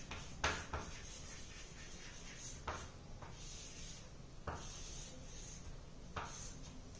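Chalk writing on a chalkboard: faint scratching strokes broken by several short, sharp taps of the chalk against the board.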